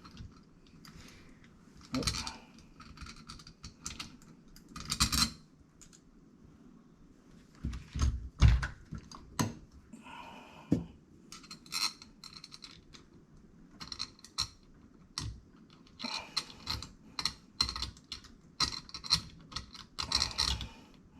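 Door lock hardware being handled and fitted by hand: irregular clicks, taps and light metallic rattles, with a few louder knocks about eight seconds in.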